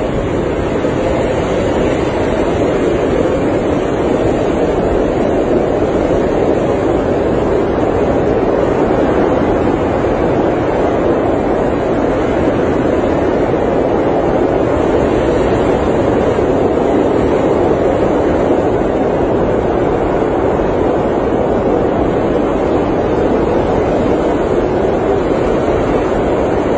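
Blizzard wind blowing steadily: a dense, even rush of noise with a low rumble underneath and no breaks or gusts standing out.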